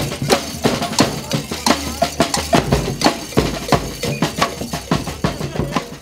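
Music driven by fast percussion: drum and wood-block-like strikes at about four a second.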